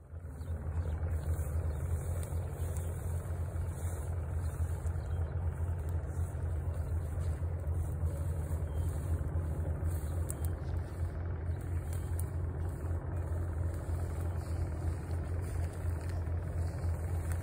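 A steady low rumble that starts suddenly and holds at an even level, with a few faint clicks over it.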